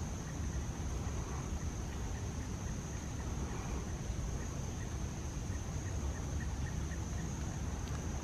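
Insects droning in one steady, high, even buzz over a low rumble, with a short run of faint chirps, about three a second, near the middle.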